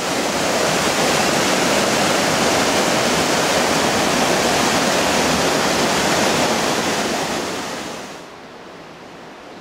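Small mountain waterfall and stream rushing over boulders: a steady, loud rush of water that drops to a much quieter rush about eight seconds in.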